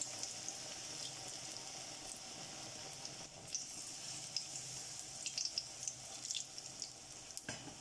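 Besan-battered bread slices deep-frying in hot oil in a kadai: a steady sizzle with scattered small pops and crackles. A brief knock near the end.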